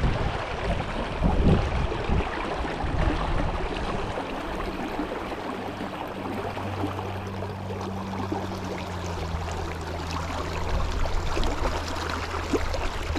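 Steady rush of brook water. A low, steady hum joins about three seconds in and runs until near the end.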